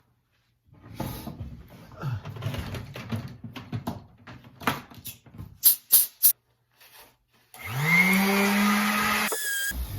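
Rubbing and handling sounds with several sharp clicks, as oil is worked onto an axe handle. Near the end a small electric motor spins up, rising in pitch, runs steadily for about a second and a half, then cuts off with a short falling whine.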